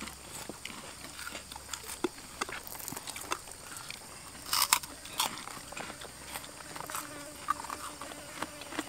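Crunching and chewing of crispy flour-fried tilapia eaten by hand, with scattered sharp crunches, the loudest about four and a half seconds in. A faint steady drone comes in after about six seconds.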